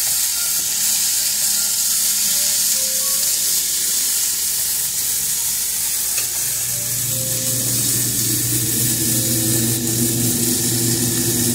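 Cubed beef steak sizzling as it sears on high heat in bacon fat in a pan, a steady frying hiss. About six and a half seconds in, a steady low hum comes in under it.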